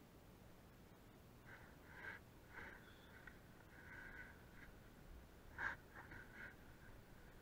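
Faint, muffled scraping of skis sliding and turning on packed snow, coming in short bursts, the loudest a little over halfway through.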